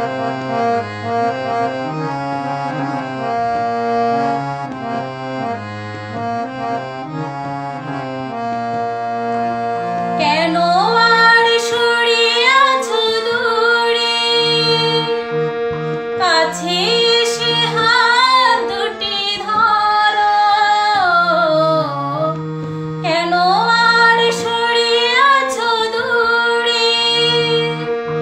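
Harmonium playing an instrumental interlude: a reedy melody over a steady held drone note. About ten seconds in, a louder melodic line with wavering glides joins on top.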